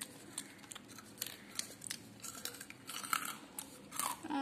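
Faint, irregular small clicks and crunches of toy dolls and snack pieces being handled and set down on a hard floor.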